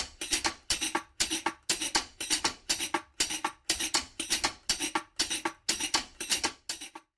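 Intro music: a fast, steady percussive beat that stops just before the talking begins.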